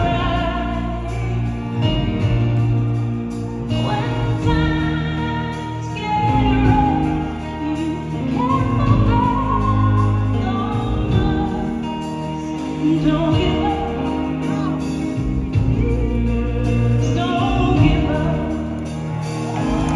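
A live band and singer performing a slow pop ballad: a voice sings over sustained low notes from the band.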